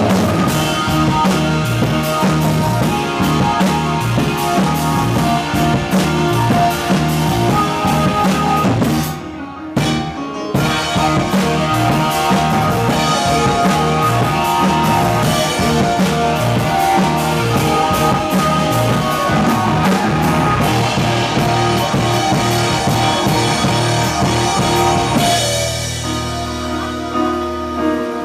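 Live rock band playing: drum kit, electric guitar and synthesizer keyboards. The music breaks off for a moment about ten seconds in, and near the end the drums drop out, leaving held keyboard chords.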